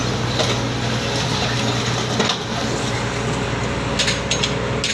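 Steady running of ship's machinery, a constant hum under a dense noisy rumble, with a few sharp clacks near the end.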